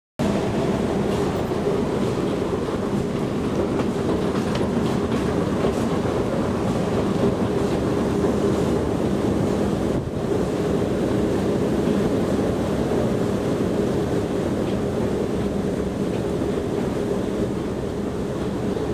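A long metro escalator running: a steady mechanical drone with an even low hum, heard from on the escalator.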